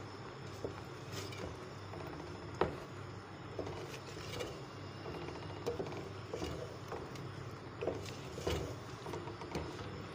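Wooden spoon stirring chicken in a thick yogurt gravy in a metal pot, knocking and scraping against the pot at irregular moments, the loudest knock about two and a half seconds in. Under it runs a steady low hiss of the gravy cooking down to thicken.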